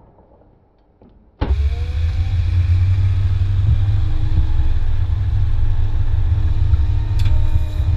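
A motor vehicle running: a loud, steady low engine and road rumble that cuts in suddenly about a second and a half in, after near quiet.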